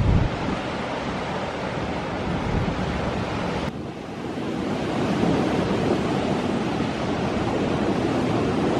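Storm surf breaking, with strong wind buffeting the microphone: a dense, steady rush of noise that dips briefly about four seconds in.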